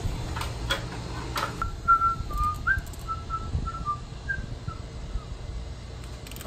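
A few sharp clicks, then a person whistling a short tune of brief notes that step up and down in pitch, over a low steady hum.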